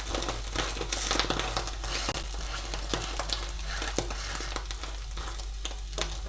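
Food sizzling in a Tefal Jamie Oliver Cook Smart stainless steel frying pan, with many small crackles throughout.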